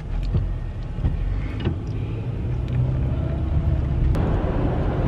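Steady low rumble of a running car heard from inside the cabin, setting in abruptly, with a few light clicks over it.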